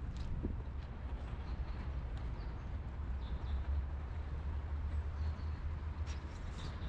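Footsteps of a person walking on wet paving stones, over a steady low rumble, with faint bird chirps now and then.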